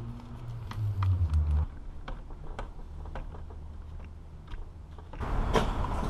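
Scattered light clicks and ticks of a screwdriver and fingers working screws out of a plastic dash trim panel, with a brief low rumble of handling about a second in.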